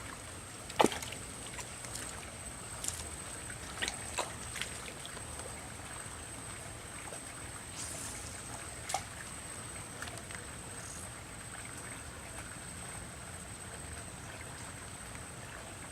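Steady wash of river water with a constant thin high-pitched whine over it, broken by a few sharp clicks, the loudest about a second in.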